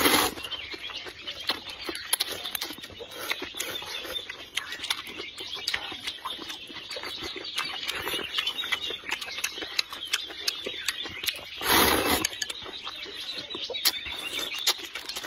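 A flock of small birds chirping and chattering, mixed with close-up slurping and chewing of noodles; loud slurps at the very start and about twelve seconds in.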